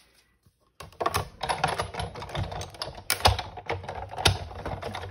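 Manual die-cutting machine being cranked, the plate sandwich with a paw-print die rolling through to cut the paper, giving a dense run of rapid clicks from about a second in, with two louder clacks near the middle.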